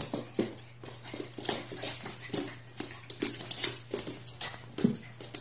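A puppy's claws clicking and tapping irregularly on a hard wooden floor as it scampers about after a tennis ball, over a steady low hum.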